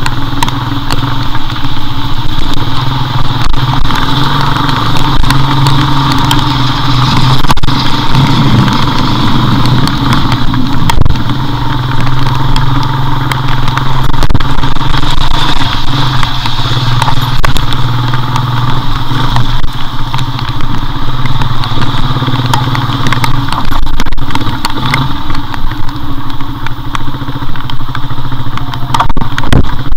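Motorcycle engine running steadily at low road speed on a wet road, with wind and rain noise on the camera and many small ticks.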